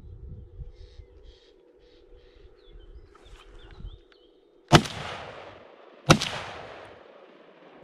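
Two gunshots from a hunting gun about a second and a half apart, each followed by a long fading echo.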